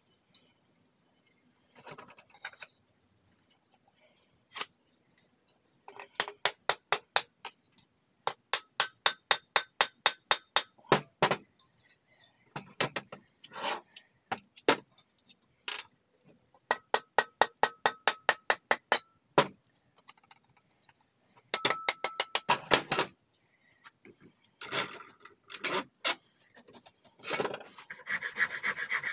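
Quick runs of taps, about five a second, with a metallic ring, as the steel tomahawk head is knocked onto an ash handle, with scattered single knocks between. Near the end a rasp starts filing the wooden handle in steady strokes.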